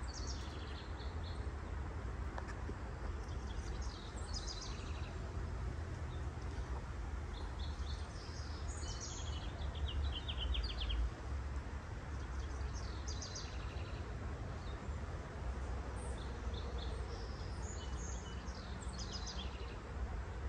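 Small birds chirping and trilling in short rapid bursts several times, over a steady low background rumble.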